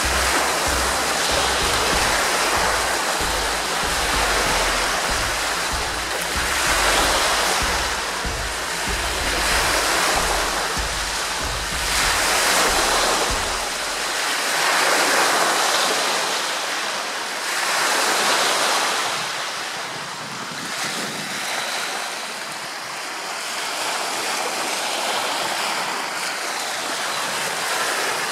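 Small wind-driven waves washing onto a shore, swelling and fading every few seconds. Wind buffets the microphone as a low rumble in the first half, stopping about halfway through.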